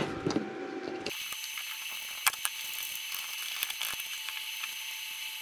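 Cotton swab with isopropyl alcohol scrubbing a circuit board: faint scratchy rubbing with small irregular ticks. About a second in, a steady high hiss with a thin whine sets in abruptly underneath.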